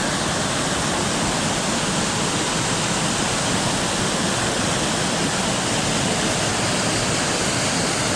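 Waterfall rushing, heard from the top of the falls: a steady, even wash of falling water.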